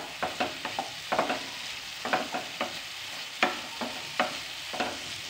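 Wooden spatula stirring tomato pieces and fried spice paste in a nonstick kadhai: irregular scrapes and taps against the pan, several a second, over a faint sizzle of frying.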